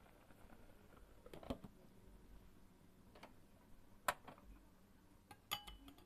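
A few faint clicks and clinks of a stainless-steel pot being handled with a wire strainer and a glass lid. The sharpest comes about four seconds in, and one near the end rings briefly.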